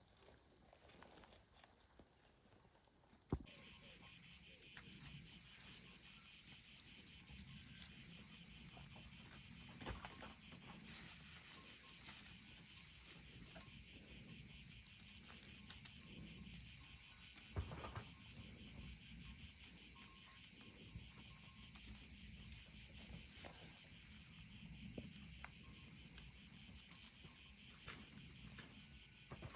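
Crickets chirping in a steady, rapidly pulsing chorus that sets in abruptly about three seconds in, after a few soft taps and clicks.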